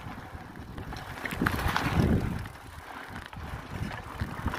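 Mountain bike rolling fast down a dirt forest trail: tyres rumbling over the ground with wind on the microphone, and a few short rattles from the bike about a second and a half in.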